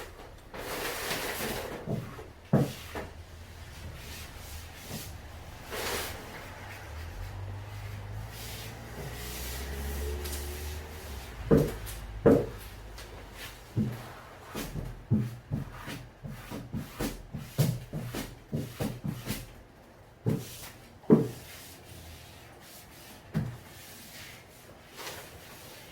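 Knocks, clicks and rubbing from door repair work, as a door and its hardware are handled, with a low hum for a few seconds near the middle.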